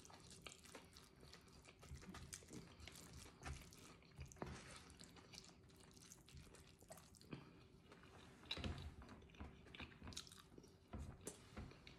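Close-miked chewing and mouth sounds of someone eating a burrito bowl of rice, beans and cheese, with a fork scraping and scooping in the bowl: soft, irregular clicks and smacks, a little denser about two-thirds of the way through.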